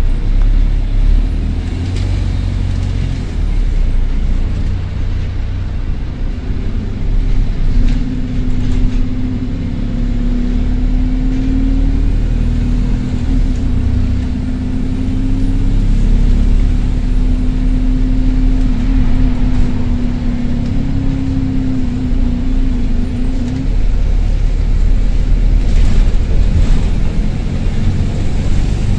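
A Stagecoach London bus's diesel engine running as the bus drives, heard from inside the saloon, with a burst turbo exhaust. A strong, steady droning hum runs in several stretches from about eight seconds in until about twenty-three seconds, over a constant low engine rumble.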